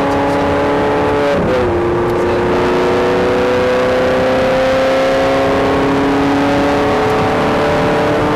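Ferrari 430 Scuderia's 4.3-litre V8 at full throttle, heard from inside the cabin. About a second and a half in, a quick upshift drops the revs, then the engine note climbs steadily as the car accelerates down the straight.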